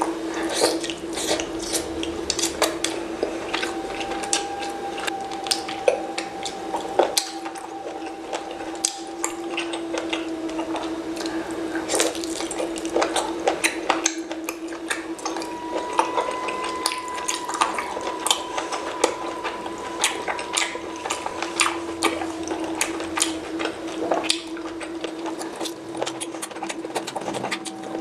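Mukbang eating sounds: rapid irregular clicks and clinks of cutlery and dishes, over a steady low hum.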